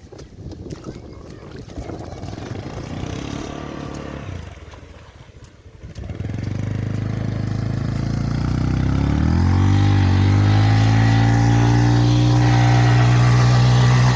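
Motorcycle engine, most likely the Bajaj Pulsar 150's single-cylinder, revving up about six seconds in and then holding steady at high revs; before that a rushing hiss.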